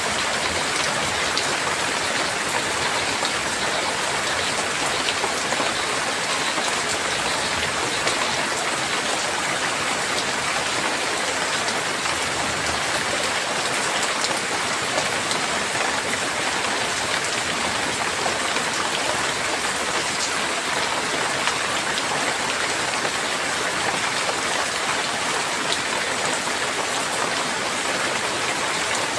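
Steady heavy rain falling on a surface, an even hiss with scattered drop ticks.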